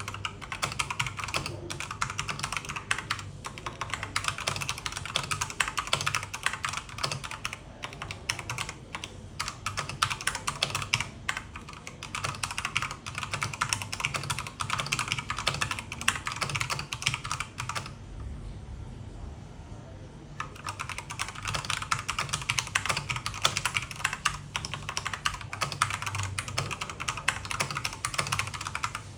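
Continuous typing on a Dareu EK810G mechanical keyboard with red linear switches: a dense stream of key clacks that stops for about two seconds roughly two-thirds of the way through, then resumes. A low steady hum runs underneath.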